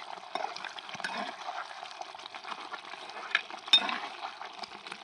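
Tomato paste and red chilli powder sizzling in hot oil in a pan while being stirred, with many small scrapes and clicks of the utensil against the pan and a couple of sharper knocks a little past three seconds in.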